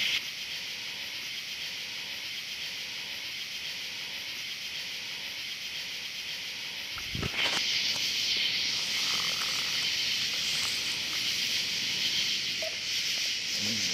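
Steady chorus of night insects, crickets, a dense high hiss. About seven seconds in a single dull thump, after which the chorus is louder.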